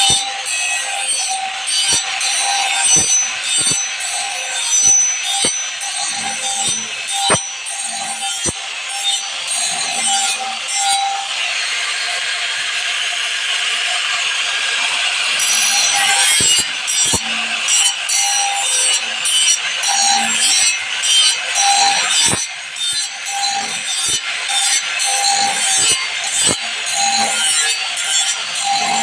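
Band saw blade teeth being sharpened with a file: repeated scraping file strokes on the steel, with a light ringing from the blade and an occasional sharp click.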